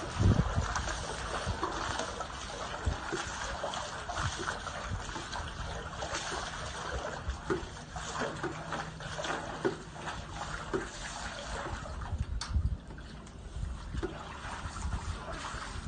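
Swimming pool water churning and splashing steadily, with a trickling sound.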